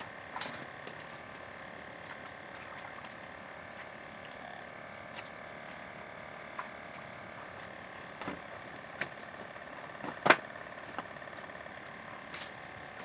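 A motor running steadily, with scattered short clicks and knocks; the loudest knock comes about ten seconds in.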